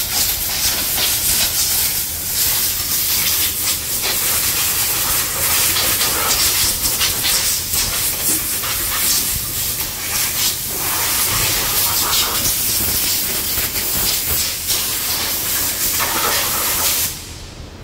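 Compressed-air blow gun hissing steadily as it blows dirt out of a plastic air filter housing. The hiss cuts off shortly before the end.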